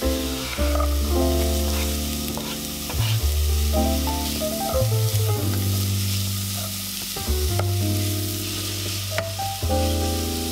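Grated carrots and diced onion sizzling in hot oil in a pot, stirred with a wooden spatula, with background music underneath.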